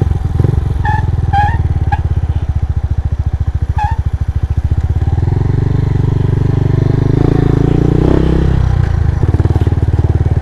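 Motorcycle engine running at low speed with an even, rapid pulsing beat, swelling a little in the second half as the throttle is opened.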